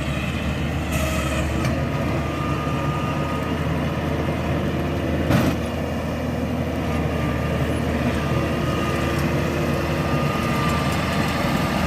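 Rice harvesting machine's engine running steadily with a constant drone. A single sharp knock sounds about five seconds in.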